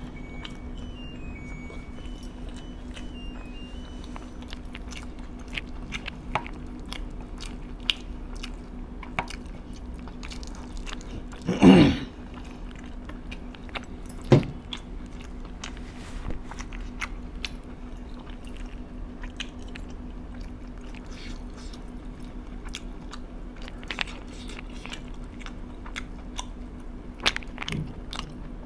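A person chewing and biting food close to the microphone, with crunchy bites and small wet mouth clicks scattered throughout, over a steady low hum. There is one louder brief sound about twelve seconds in and a smaller one a couple of seconds later.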